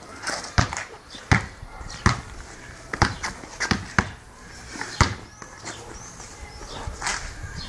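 Basketball dribbled on a concrete court: a string of sharp bounces, about one every three-quarters of a second, the last about five seconds in.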